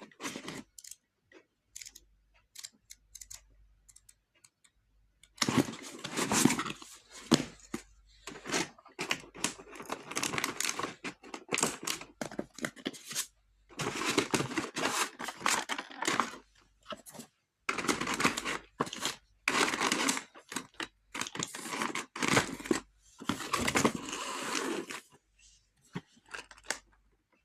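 Packaging being torn open and handled: a few scattered clicks, then repeated bursts of tearing and crinkling lasting a second or two each, with short pauses between.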